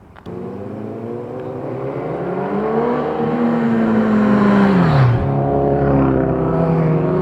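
Motorcycles riding past: an engine note climbs as one approaches, then drops sharply in pitch as it goes by about five seconds in, with another motorcycle engine running on after it.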